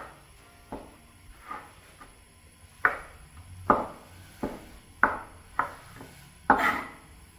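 About nine sharp knocks from kitchen utensils at irregular intervals, each dying away quickly, the loudest about six and a half seconds in.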